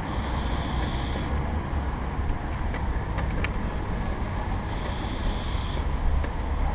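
Steady low rumble of wheels rolling along a tarmac path, picked up by a GoPro mounted on the moving vehicle, with wind on the microphone. A thin high hiss comes and goes twice.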